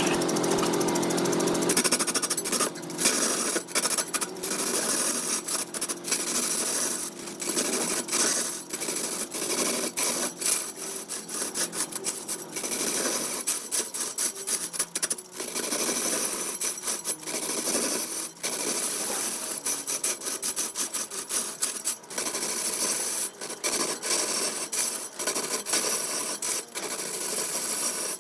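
Wood lathe turning wood, with a turning tool cutting into the spinning piece: a steady machine hum for about the first two seconds, then rough scraping cuts that break off and resume many times.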